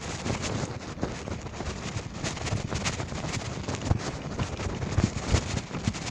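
Wind buffeting the microphone of a handlebar-mounted phone on a moving bicycle, with scattered knocks and rattles as the bike rides over the bumpy dirt road.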